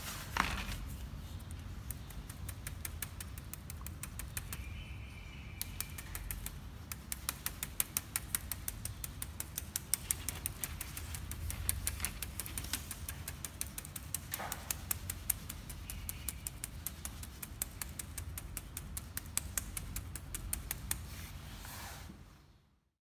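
Round foam sponge dauber patting paint through a plastic wall stencil: rapid, even tapping, several taps a second, growing denser about five seconds in, over a low steady rumble.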